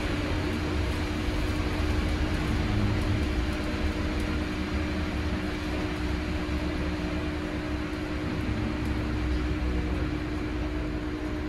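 Cabin noise inside a Heuliez GX337 Linium electric bus on the move: a steady hum over low road rumble and tyre noise on wet pavement.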